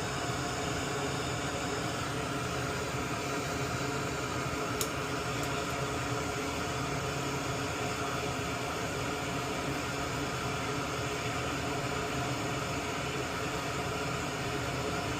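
Steady whir of a small electric fan with a constant hum, and one faint tick about five seconds in.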